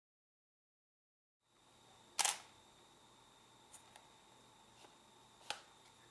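A Canon EOS 60D DSLR's shutter firing, a short mechanical clack about two seconds in, followed by a few faint clicks and another sharp click near the end, over a faint steady high tone.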